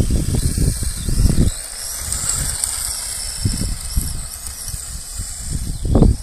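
Thunder Tiger Sparrowhawk DX II radio-controlled drift car driving on asphalt, its high whine rising and falling. Wind buffets the microphone, heaviest in the first second and a half and again near the end.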